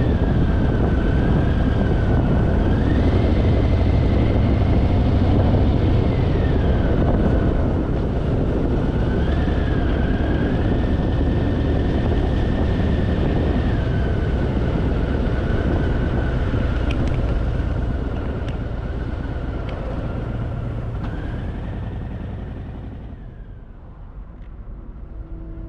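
Harley-Davidson Fat Boy V-twin running under way, with heavy wind noise over the rumble. The pitch steps up and down several times, and the sound fades out near the end.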